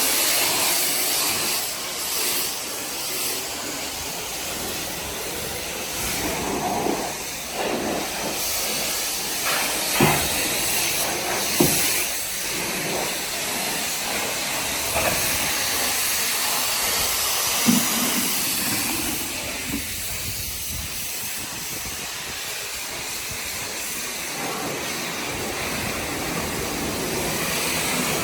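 Pressure washer spraying water in a steady hiss, with a few short knocks along the way.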